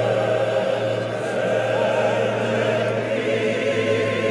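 Men's choir singing sustained chords, with a steady low bass note under the wavering upper parts, in the long echo of a cathedral.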